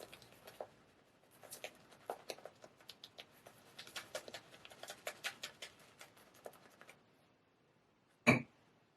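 Straight razor scraping through beard stubble in short strokes, a dense irregular crackle of whiskers being cut. The crackle stops about seven seconds in, and a single loud knock follows just over a second later.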